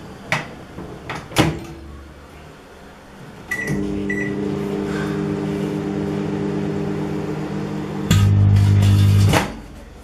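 Microwave oven: two sharp clicks, then two short keypad beeps, then the oven running with a steady electrical hum. About eight seconds in, a much louder low buzz takes over as the candle burning inside bursts, and the sound cuts off suddenly about a second later.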